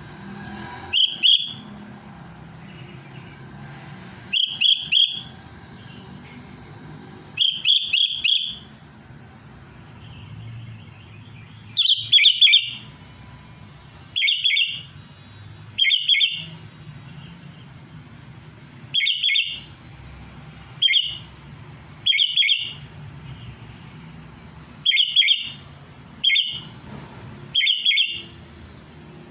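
Caged sooty-headed bulbul (cucak kutilang) giving loud, sharp chattering calls in about a dozen short bursts, some of two or three quick notes, every couple of seconds. These are the excited calls that keepers take for a bird calling out a rival.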